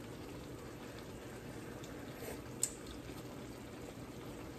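Chicken, butternut squash and coconut milk stew boiling gently in an uncovered pan, a faint steady bubbling, with a single short click a little past halfway.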